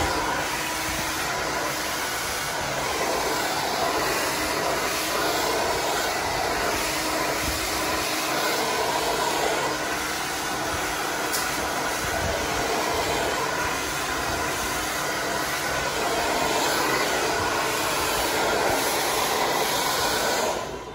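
Handheld hair dryer running steadily, blowing air through hair wound on a round brush; the rush of air stops abruptly near the end.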